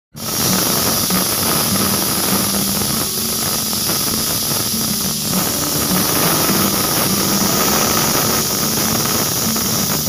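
Pressure cooker whistling: steam jets out past the weighted whistle valve on the lid in a loud, steady, high hiss, the sign that the cooker is at full pressure.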